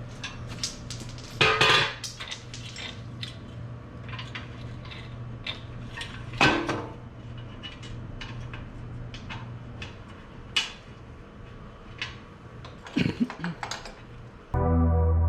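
Metal clanks and clinks of tools and parts being handled, irregular knocks over a steady low hum, with a few louder clanks. Music comes in near the end.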